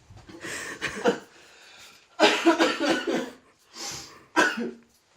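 A person coughing and gasping in a few bursts, out of breath from a fit of laughter.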